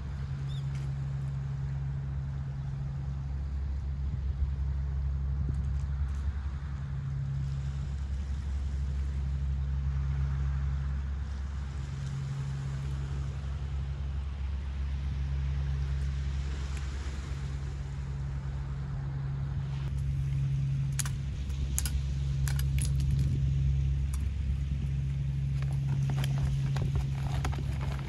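A motor running steadily with a low hum that pulses every second or two, with scattered clicks and rattles in the last several seconds.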